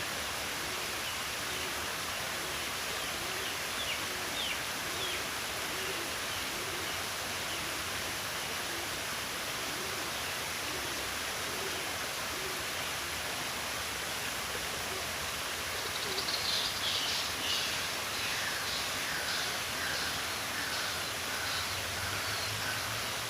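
Steady rush of running water, with birds calling faintly over it: a few short calls early, then a quick run of chirps and lower falling notes about two-thirds of the way through.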